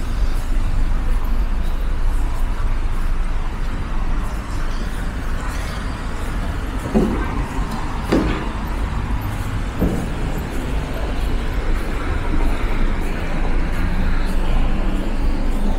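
City road traffic: cars and buses running past, a steady low rumble with a few brief passing sounds in the middle.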